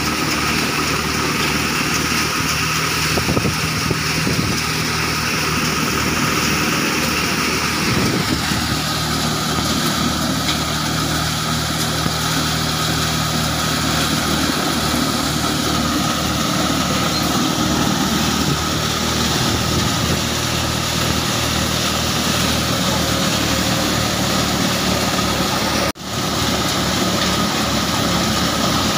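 Tractor-driven multicrop cutter thresher running steadily while soybean plants are fed into it: a continuous engine drone mixed with the threshing machinery's whir. The sound changes a little about eight seconds in and drops out for an instant near the end.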